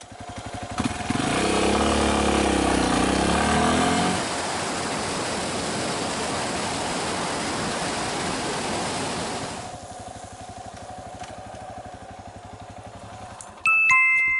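Yamaha Serow 250's single-cylinder four-stroke engine on the move, its pitch rising and falling for the first few seconds, then running steadily with riding noise, and dropping to a quieter low run after about ten seconds as the bike slows. A brief ringing ding, the loudest sound, comes near the end.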